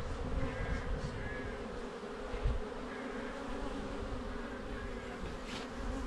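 Honeybees buzzing over an open hive's frames: a steady, even hum of many bees.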